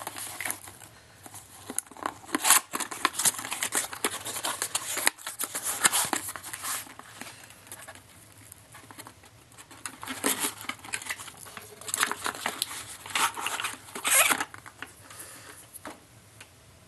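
Irregular rustling, tearing and clicking as a box of .50 BMG ammunition is opened and the cartridges inside are handled, with busy stretches of noise and quieter gaps between them.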